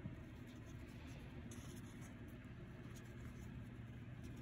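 Faint rustle and light clicks of paper sticker sheets being handled, over a low steady hum.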